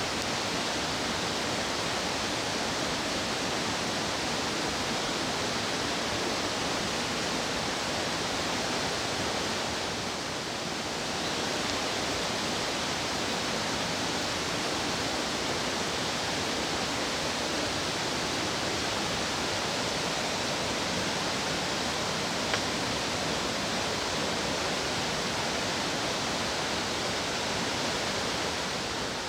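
Fast-flowing stream water rushing steadily, with no breaks.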